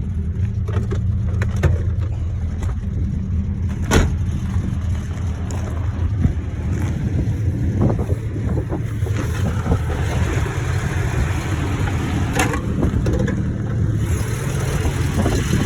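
Ford XF Falcon's inline-six engine idling steadily, fitted with a mild aftermarket cam and extractors. A single sharp knock sounds about four seconds in, and another near the end.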